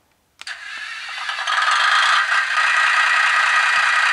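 Sound decoder in a Mehano BB 61000 model diesel locomotive playing the engine start-up through the model's small speaker: it starts suddenly about half a second in, builds over the next second, then settles into a steady, tinny engine run with no bass.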